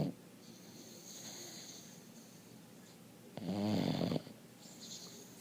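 Loud snoring from a sleeper: one buzzing snore of just under a second about three and a half seconds in, with quieter, hissing breaths between snores.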